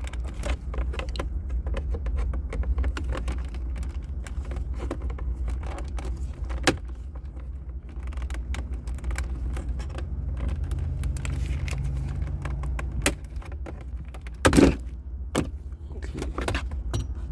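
Plastic interior trim on a car's center console being pried with a tool: scattered small clicks, scrapes and rattles over a steady low hum, a sharp click about seven seconds in and a louder crack about fourteen and a half seconds in.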